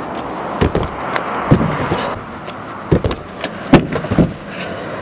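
Several sharp thumps and slaps as a parkour runner's feet and hands strike a painted obstacle wall during a webster-to-cat-leap attempt, over a steady rushing noise.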